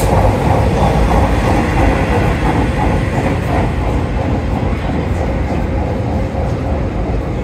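Bombardier 5000-Series rapid-transit train pulling away along elevated track, its wheels clattering over the rails in a repeating rhythm, gradually fading as it moves off.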